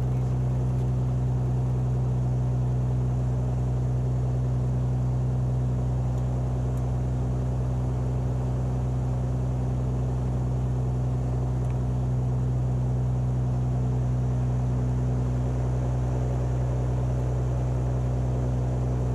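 Beechcraft Bonanza V35B's six-cylinder piston engine and propeller running steadily at low power while taxiing, heard as an even, unchanging drone inside the cabin.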